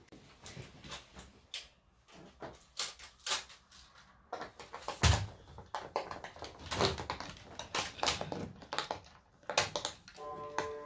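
Irregular soft clicks and knocks of toys being handled on a wooden floor: bubbles of a silicone pop-it fidget toy pressed by fingers and a plastic toy car set down and pushed, with one louder knock about halfway through. Near the end, steady electronic tones begin.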